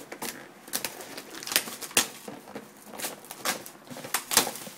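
Thin plastic shrink wrap being torn and peeled off a trading-card box, crinkling in quick irregular bursts with a few louder crackles.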